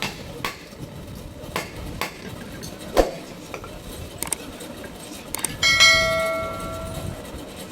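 Scattered knocks and clicks of metal fan parts being handled. A little before six seconds in, a metal part is struck and rings like a bell for about a second and a half.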